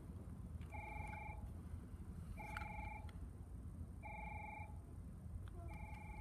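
Electronic warning tone at a railway station ringing four times in an even, slow repeat, each ring a short trilling chime, over steady low background noise.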